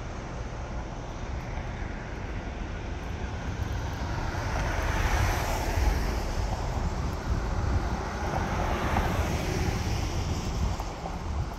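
Street traffic: cars passing on the road, their tyre and engine noise swelling about five seconds in and again near nine seconds, over a steady low rumble.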